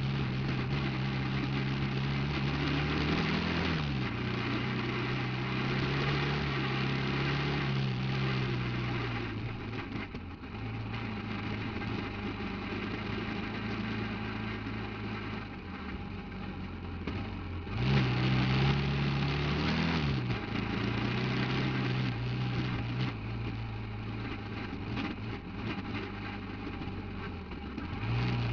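Off-road buggy engine running, its pitch climbing and dropping back briefly twice, once a few seconds in and again past the middle, over rough driving noise.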